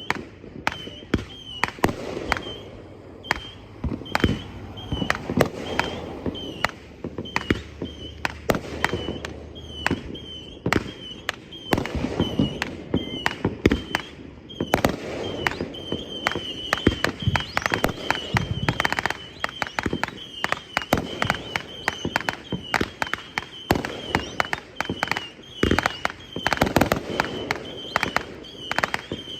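Fireworks going off in rapid succession: a dense, continuous string of sharp bangs and crackles, several every second.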